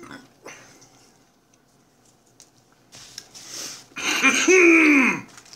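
Quiet food handling for about three seconds, then a loud, raspy vocal groan from the man eating, lasting about a second and falling in pitch.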